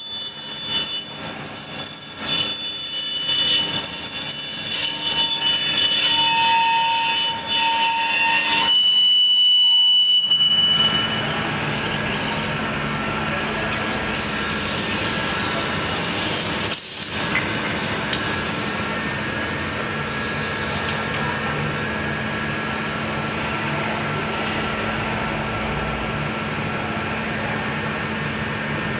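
Manual metal lathe turning a giant drill bit. For about the first ten seconds the machining noise is louder and carries several high, steady ringing tones. It then drops to a quieter, steady machine noise with a low hum.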